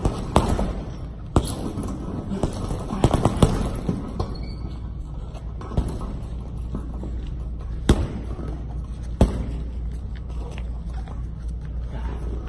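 Boxing gloves striking a heavy punching bag: sharp single thuds, several in the first few seconds, then a few more spaced well apart, over a steady low hum.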